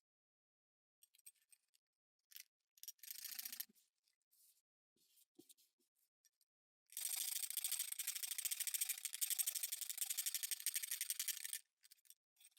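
Light handling clicks and a brief scrape, then about four and a half seconds of rapid, even rasping as a tool scrapes or files the hard plastic pickup riser. It cuts off sharply.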